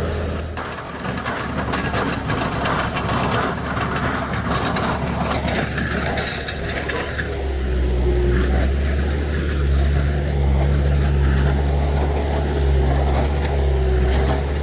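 A vehicle or heavy machine's engine running steadily under broad mechanical noise, growing louder and heavier about halfway through.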